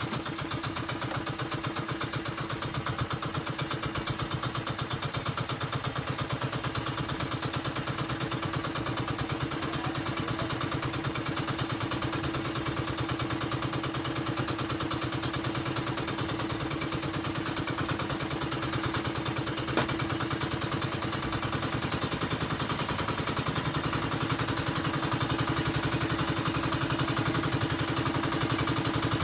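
A small engine running steadily at constant speed, its firing pulses even and fast.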